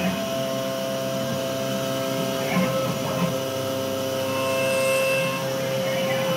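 Langmuir Systems MR-1 CNC mill cutting CPM 154 stainless steel: a 4 mm four-flute end mill spinning at 8,000 rpm, full-width slotting 0.020" deep at 77 inches a minute. The cut gives a steady high tone, with a few faint pitch sweeps.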